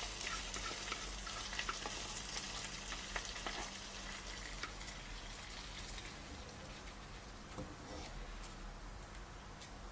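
Hot coconut-oil tempering of mustard seeds, curry leaves and dried red chillies sizzling and crackling, dying away over several seconds once the heat is off.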